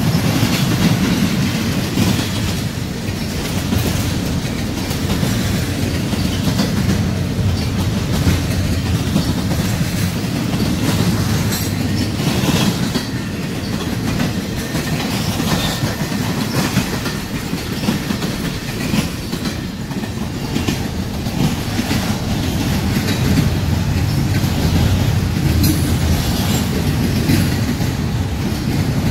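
Double-stack intermodal freight train's well cars rolling past close by: a steady low rumble of steel wheels on the rails, with the clickety-clack of wheels over rail joints and occasional sharp clicks.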